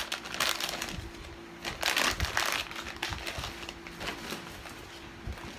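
Plastic packaging crinkling as an item is handled and pulled open, in two bursts, the second about two seconds in.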